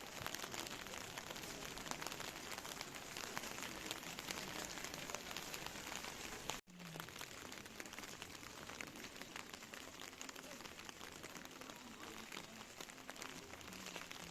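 Steady rain falling, a fine crackling patter of many drops, with a brief break about halfway through.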